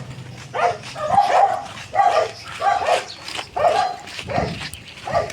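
A dog barking over and over, short barks about one to two a second.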